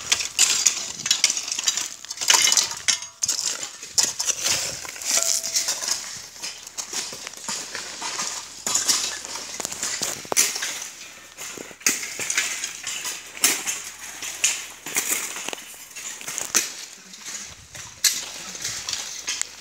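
Loose broken-brick rubble and gravel scraping and clinking: an uneven run of short knocks and crunches.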